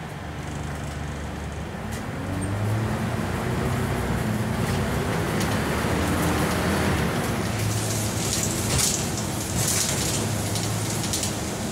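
Scania N94UB single-decker bus heard from inside: its diesel engine pulls away and accelerates, the engine note rising and shifting with the gear changes. Road noise grows with speed, and there are sharp ticks later on.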